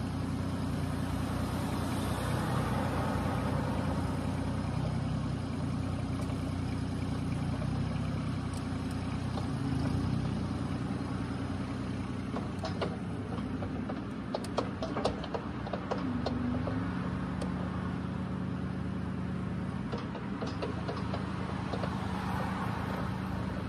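CAT 302.7D mini excavator's diesel engine running steadily while the boom and arm are worked hydraulically. A series of short metallic clicks and clanks comes about halfway through, and the engine note shifts slightly just after.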